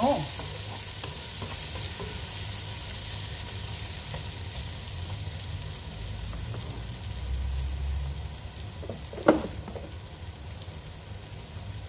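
Chopped onion, crushed garlic and ginger sizzling steadily in hot oil in a metal pot, with a spoon stirring at the start. A single sharp knock comes about nine seconds in.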